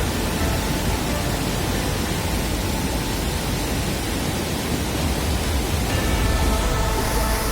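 Steady, loud rushing noise with no clear rhythm or pitch.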